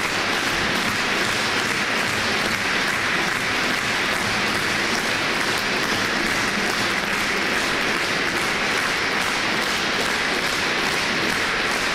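A concert hall audience applauding, with steady, dense clapping that holds at an even level.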